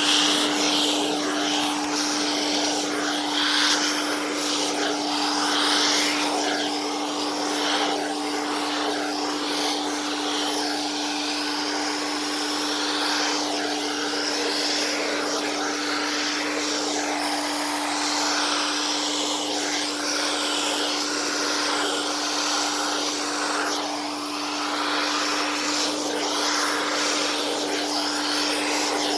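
Vacuum cleaner running steadily as its nozzle is drawn over a cat's fur. Its motor gives a constant hum, and the rushing air swells and dips every second or two as the nozzle moves.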